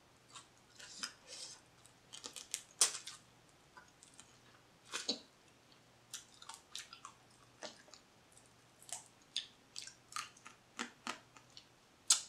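Close-up eating sounds of blue crab: shell pieces snapping and clicking as the legs are picked apart, with sucking and chewing as the meat is drawn out, in irregular short bursts.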